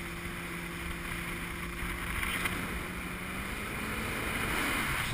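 Motorboat under way: a low engine hum under a steady rush of wind and water noise, the hum creeping up in pitch a little about three seconds in.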